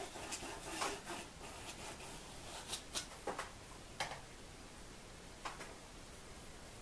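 Paintbrush scrubbing acrylic paint onto canvas, a soft rubbing mostly in the first couple of seconds, with a scattering of light clicks and taps.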